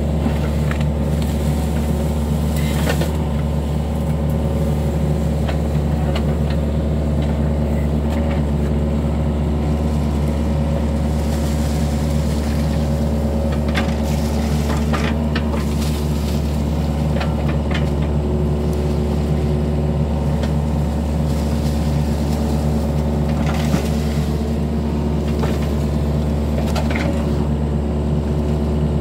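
Yanmar mini excavator's diesel engine running steadily. Scattered knocks and scrapes come from the bucket digging mud and vegetation out of a ditch.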